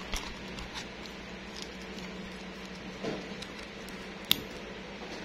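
Plastic parts of an electric quilling tool clicking and rubbing as its battery holder is fitted into the housing, with a sharp click about four seconds in. A faint steady low hum runs underneath.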